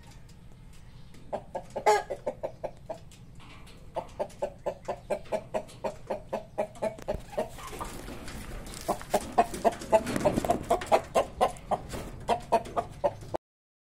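Chickens clucking in runs of short, even clucks, about four a second, with light clicks between. The sound cuts off suddenly near the end.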